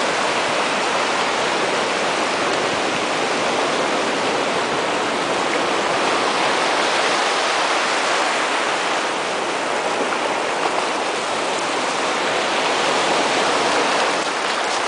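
Steady rush of ocean surf washing over shallow water, mixed with the splashing of a dog running through it.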